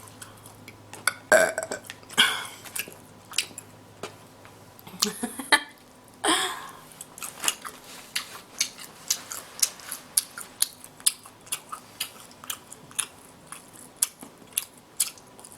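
A person eating seafood with loud, wet chewing and lip-smacking, a rapid run of sharp smacks and clicks. A loud burp comes about six seconds in.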